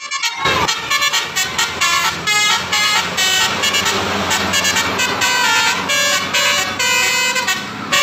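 Basuri 'telolet' multi-tone bus horn playing a quick melody, one short horn note after another with hardly a gap.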